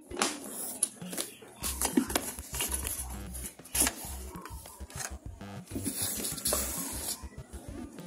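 Hands handling a hard plastic screwdriver-kit case (Jakemy JM-8139): irregular rubbing, light knocks and clicks as it is gripped and turned.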